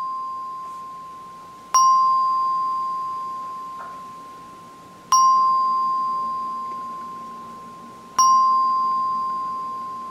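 A bell-like chime with one clear pitch, struck three times about three seconds apart. Each stroke rings and fades slowly, and the ring of an earlier stroke is still dying away at the start.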